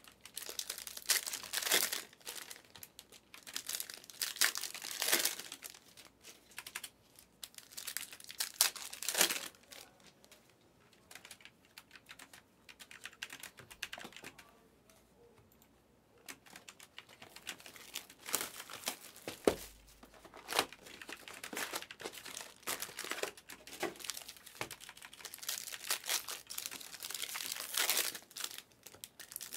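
Foil trading-card pack wrappers crinkling and tearing as packs are opened, with stacks of cards being shuffled and flicked through by hand. There is a quieter spell about a third of the way in before the crinkling picks up again.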